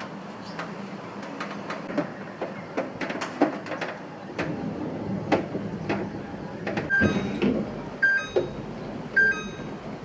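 Kitchenware being handled: a run of light knocks and clicks as things are set down and moved. Three short electronic beeps sound about a second apart near the end.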